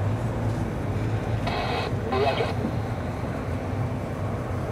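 Distant military jet engine rumble, steady and low-pitched, as a single jet flies low over the runway. Two brief higher-pitched sounds come about a second and a half in.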